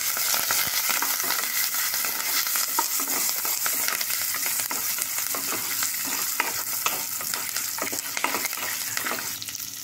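Tempering of peanuts, cashews, chana and urad dal, green chillies and fresh curry leaves sizzling in hot ghee in a kadhai, stirred with a wooden spatula, with scattered crackles and scrapes through the steady hiss.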